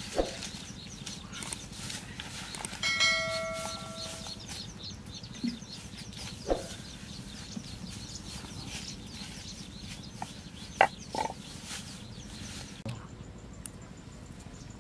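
Rural outdoor ambience with faint high chirping throughout, one held fowl call about three seconds in, and a few short knocks as baskets and a clay pot are set down on straw.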